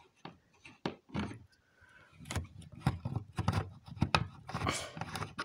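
A screwdriver working a screw out of a plastic exit sign's mounting plate, then irregular clicks, knocks and rubbing as the plastic sign housing is handled, sparse at first and busier after about two seconds.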